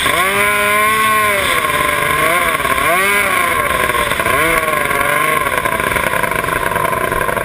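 Race boat's outboard engine running at low speed, its pitch dipping and rising again several times as the throttle is eased off and back on.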